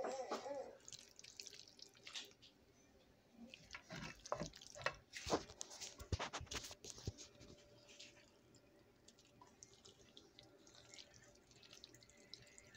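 Scattered soft wet clicks and taps, thickest in the middle, from creamy Alfredo pasta being stirred in a nonstick pan with a silicone spatula, mixed with phone handling noise.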